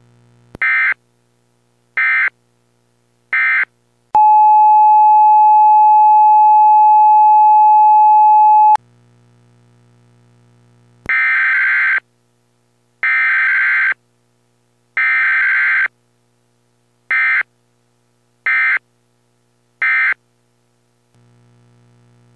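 Emergency Alert System tones: three short screeching data bursts, then a long steady attention tone lasting about four and a half seconds, then three longer data bursts followed by three short ones. A faint low hum sits in some of the gaps.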